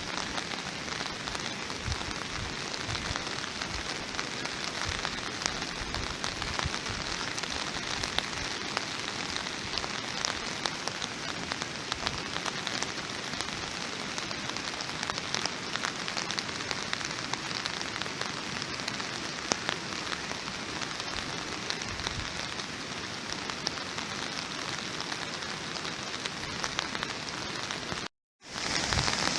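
Steady rain falling, a dense hiss dotted with many small drop impacts. It cuts out abruptly for a moment near the end, then resumes a little louder.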